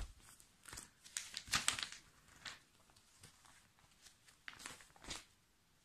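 Magazine pages being handled and turned: a few short paper rustles, the loudest about a second and a half in.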